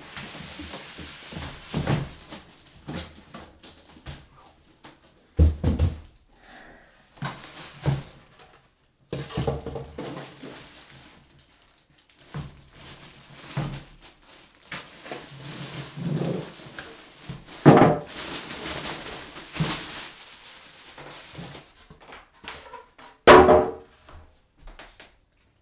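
PC parts and packaging being handled: irregular knocks and thunks with stretches of rustling, and a sharp pitched clack near the end.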